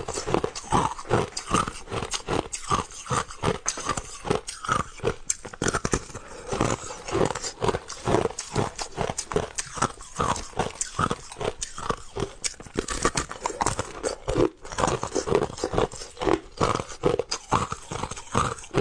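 Crushed ice being chewed close to the microphone: a steady, rapid run of crisp crunches, several bites a second.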